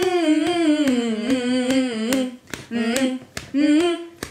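A woman humming a wordless tune, holding and sliding between notes, with sharp snaps keeping time about twice a second.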